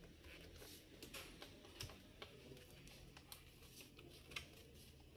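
Faint, scattered plastic clicks and small knocks as the battery latches of a Samsung RV408 laptop are worked and the battery pack is slid out, over an otherwise near-silent background.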